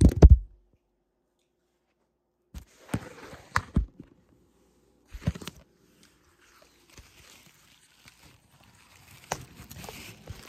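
Handling noise from a phone camera being picked up, carried and set back down: a loud knock right at the start, a few knocks and rubbing about three to four seconds in and again about five seconds in, and soft rustling near the end.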